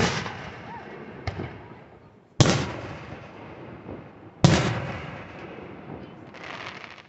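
Aerial firework shells bursting overhead: a bang at the start, a smaller one about a second in, then two loud bangs about two seconds apart, each trailing off in a long echo.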